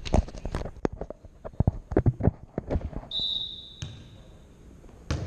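Volleyballs bouncing and being struck on a hardwood gym floor: a quick, irregular run of sharp thuds, then a referee's whistle blown once, held steady for about a second and a half, and one more thud near the end.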